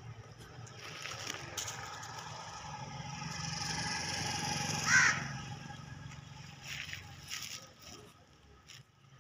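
Animal calls: a drawn-out whining call swells to a sharp cry about five seconds in, with a few short harsh calls around it.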